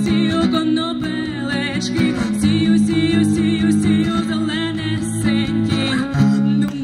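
A woman singing a melody with quick wavering ornaments over strummed acoustic guitar chords, in a live acoustic band performance.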